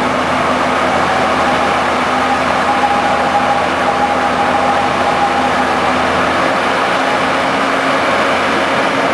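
BUMA DBM rotary drilling rig running steadily under load, a dense even machine noise with a low hum, and a faint higher whine from about two to five seconds in.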